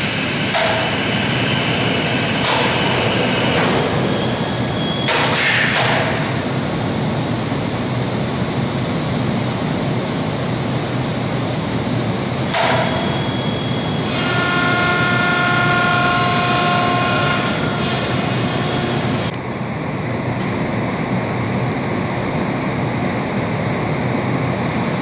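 Industrial machinery running with a loud, steady noise, broken by several short hisses. A little past halfway, a steady whine of several tones sounds for a few seconds. About three quarters through, the higher part of the noise cuts off suddenly, leaving a lower, duller running sound.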